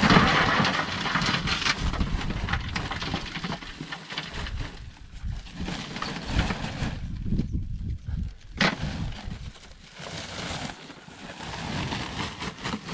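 Dried sheep-dung fuel cakes (tezek) poured from a woven plastic sack into metal stove buckets: a clattering, crumbling pour with the sack rustling, loudest in the first couple of seconds, then uneven handling and dropping of pieces, with a sharp knock about eight and a half seconds in.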